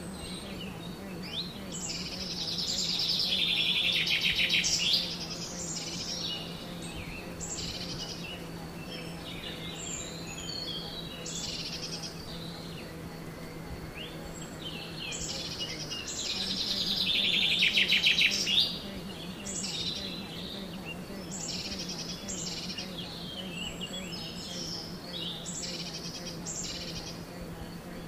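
Woodland birdsong: several songbirds chirping, and twice one bird sings a loud rapid trill that swells and then cuts off suddenly. A steady low hum runs underneath.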